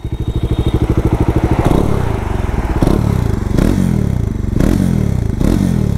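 Bajaj Dominar 400's 373 cc single-cylinder, liquid-cooled engine idling in neutral. From about two seconds in it is revved in about five short throttle blips, each rising and falling in pitch.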